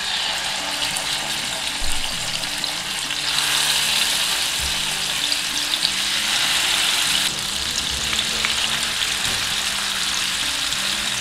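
Marinated chicken malai tikka skewers frying in hot oil in a pan, a dense steady sizzle. The sizzle swells about three seconds in and eases slightly about seven seconds in.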